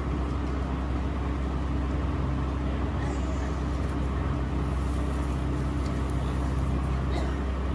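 Steady low machine hum that does not change.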